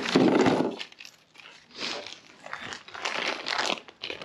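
Clear plastic hardware bag crinkling and rustling as it is handled, in irregular bursts, loudest at the start.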